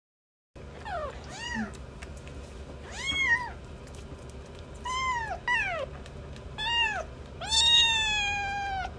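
Very young kittens mewing: a series of short, high mews, each rising and then falling in pitch, followed by one long, drawn-out mew near the end.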